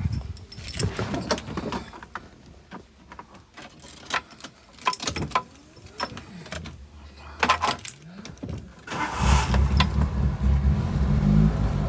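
A run of clicks and knocks, then the Toyota Tazz's engine cranks and starts about nine seconds in and settles into a steady idle.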